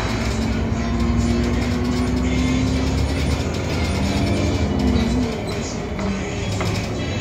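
City bus running along the road, heard from the front of the cabin: a steady engine drone with a higher whine on top. The drone eases off about five seconds in as the bus stops accelerating.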